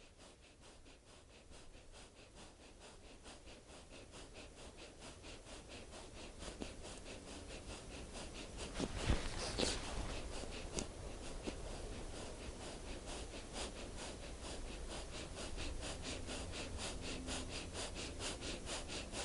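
Breath of fire from a yoga practitioner: rapid, forceful exhalations through the nose in a quick, even rhythm, picked up close by a clip-on mic. The puffs grow louder over the first half and are strongest about halfway through.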